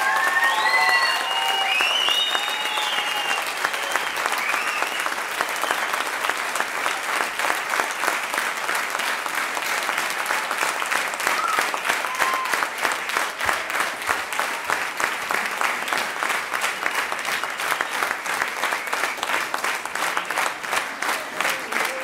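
Theatre audience applauding a curtain call, with high calls over the clapping in the first few seconds. In the second half the clapping settles into a rhythmic clap in unison.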